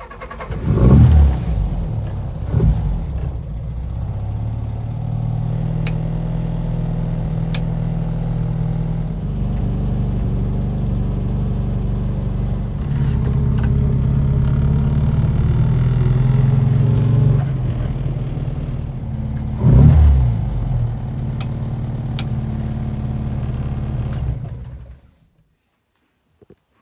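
Classic Mini's four-cylinder A-series engine running under way, its note stepping up and down several times as it is driven through the gears, with loud thumps about a second in and again near the end. The sound cuts off suddenly shortly before the end.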